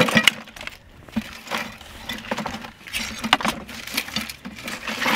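A patter of light, irregular taps and clicks.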